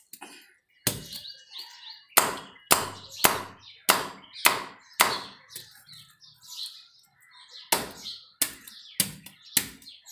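A big knife scraping scales off a large fish on a wooden block, in sharp rasping strokes about two a second, with a pause of about two seconds past the middle.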